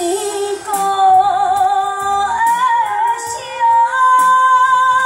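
A woman sings a slow Taiwanese opera (gezaixi) aria through a stage microphone. She holds long notes with vibrato, and her voice steps up in pitch twice.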